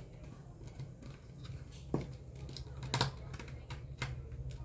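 Light clicks and taps of small plastic and metal parts being handled during a hair dryer repair, with two sharper knocks about two and three seconds in.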